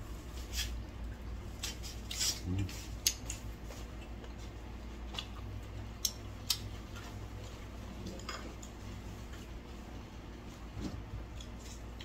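Scattered light clicks and taps of chopsticks against plates and dishes, a few sharper ones around the middle, over a low steady hum.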